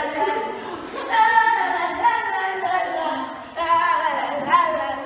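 A female voice singing unaccompanied, in several held, gliding phrases.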